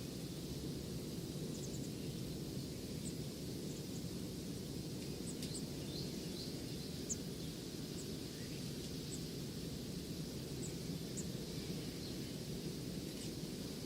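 Nature soundscape: a steady rushing background noise with short, high bird chirps scattered through it.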